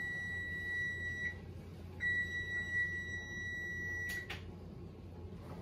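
Electronic kitchen timer beeping, two long high-pitched beeps with a short gap between them, signalling that the boiled egg is done; a click cuts the second beep off about four seconds in.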